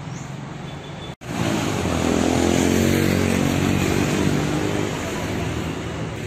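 Motorbike engines on a street; after a cut about a second in, a louder engine passes close by, peaking and then easing off.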